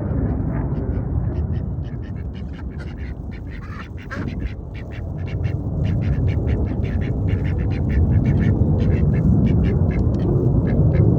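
Ducks quacking close by in many short, rapid calls, with wind buffeting the microphone in a constant low rumble.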